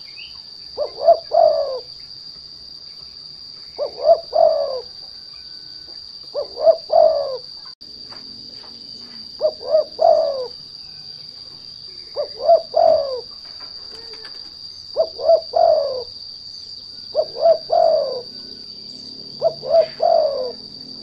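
Spotted dove (derkuku) cooing a repeated three-note phrase, two short notes and a longer falling one, about every two and a half seconds, eight times. This is a lure call, played to provoke other doves into singing. A steady high-pitched whine runs underneath.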